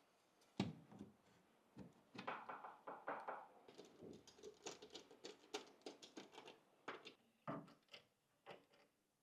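Quiet, irregular clicks and taps of computer hardware being handled and fitted together, with a few short rattly runs of small plastic or metal knocks.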